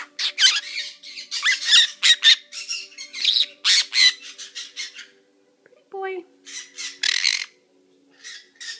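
Fiery-shouldered conure squawking: a fast run of loud, harsh squawks for about five seconds, then after a short pause a second, shorter run, and two fainter squawks near the end.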